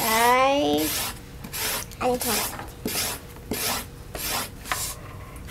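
Felt-tip marker scribbling on paper in quick back-and-forth colouring strokes, about two or three a second. A child's short rising voice sounds in the first second.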